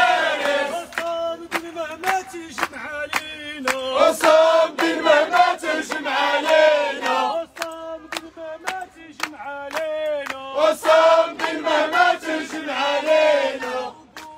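Crowd of protesters chanting Arabic slogans together in rhythmic phrases, with steady hand claps about two a second keeping the beat.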